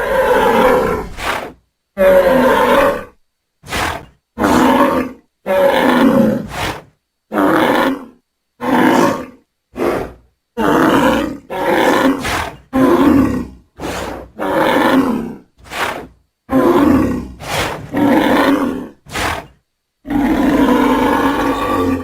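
Bull bellowing over and over: a long run of short, loud calls, each under about a second and a half, with brief silent gaps between them.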